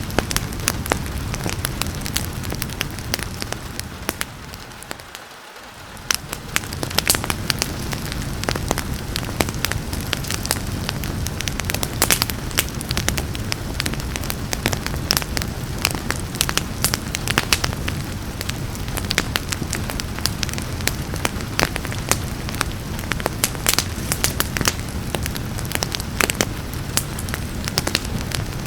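Wood fire crackling and popping with many sharp snaps over a steady hiss of rain. About five seconds in, the sound briefly fades down and then comes back.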